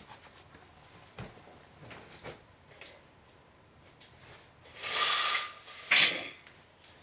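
Window shade being pulled and adjusted: a loud scraping, rattling draw about five seconds in and a shorter one about a second later, after a few light clicks.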